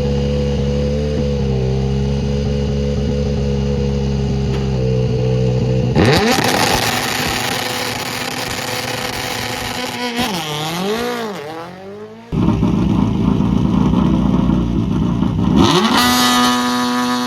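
Rally car engines at a stage start. An engine idles steadily, then about six seconds in a car launches hard, its revs rising and dipping through gear changes as it fades away. About twelve seconds in, another car is suddenly heard accelerating hard, and near the end its revs are held steady at a high pitch.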